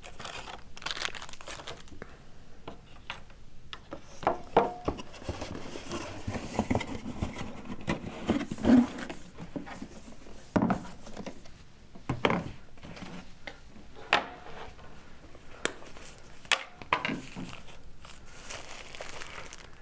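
Packaging being handled: a plastic bag crinkling and rustling, with scattered knocks as a cardboard box and cables are moved and set down on a table.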